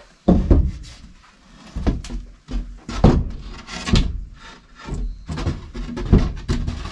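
Wooden boards knocking and clattering against each other as they are handled and stacked: a string of about a dozen sharp, irregular knocks.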